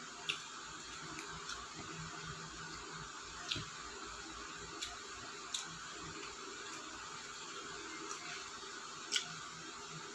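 Eating sounds: a fork twirling and lifting spaghetti from a paper box, with about five sharp clicks and smacks spread through, over a steady background hiss.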